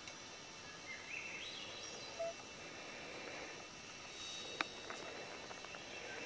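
Faint outdoor ambience with a bird calling briefly: a short series of high notes stepping upward about a second in. A single sharp click sounds a little past the middle.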